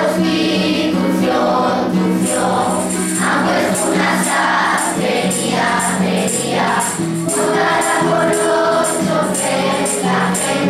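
A group of children singing a Spanish song together over a guitar accompaniment, with a jingling tambourine-like beat. The voices and the jingle come in about two seconds in, over chords that are already sounding.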